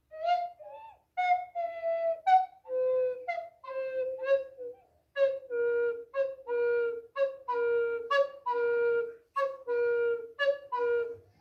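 Recorder played in imitation of a bird call: a run of short separate notes, then from about halfway a short higher note followed by a longer lower one, repeated about six times.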